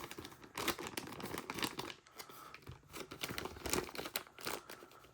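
Thin plastic bag crinkling and crackling in irregular bursts as a folding pocket knife is handled and closed inside it.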